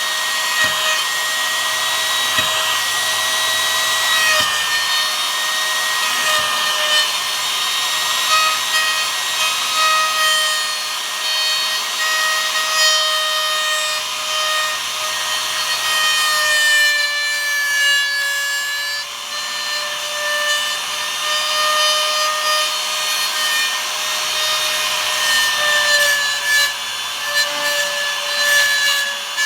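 Handheld trimmer router with a 6 mm straight bit running at high speed and cutting a mortise into wood. Its steady whine sags in pitch briefly a little past halfway as the bit takes load.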